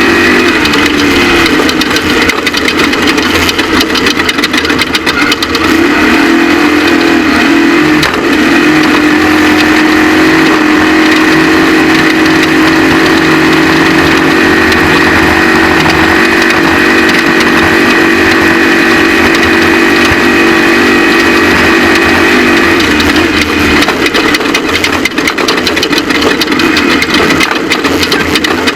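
Off-road race vehicle's engine running loud and hard at fairly steady revs under a constant rushing noise. The pitch dips briefly about a second in and again around six to eight seconds in, then the engine note eases off and roughens near the end.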